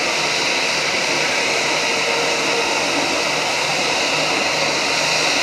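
Airbus A320 jet engines running at low taxi power as the airliner taxis in: a steady high whine over a loud, even rushing noise.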